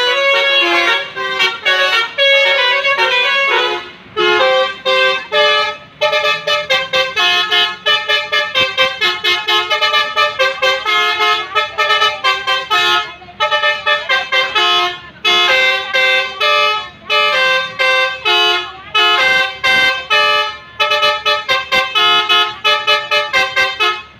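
Multi-tone telolet horn of a tour bus playing a fast tune of short, clipped notes, several a second, changing pitch from note to note, with brief breaks about four and six seconds in.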